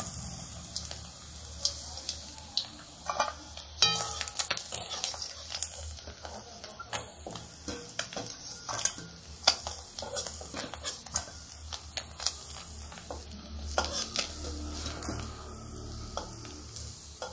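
Small whole taroi fish frying in hot oil in a metal kadai, sizzling steadily, while a flat metal spatula scrapes and clicks against the pan as the fish are turned and lifted out.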